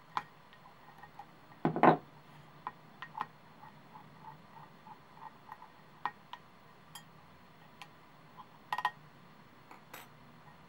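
Small sharp metal clicks and taps from clock hands being handled with pliers and fitted onto a quartz clock movement's hand shaft. The loudest is a click with a short rattle about two seconds in, with a quick cluster of clicks near the end and fainter light ticks scattered between.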